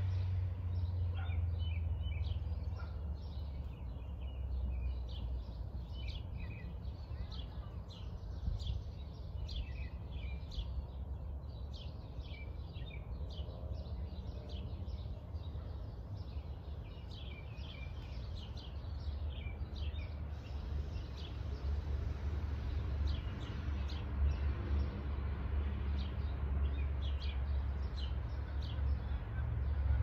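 Small birds chirping in a tree: many quick, short chirps overlapping, busiest through the first two-thirds and thinning out later. Under them runs a steady low rumble of suburban background noise.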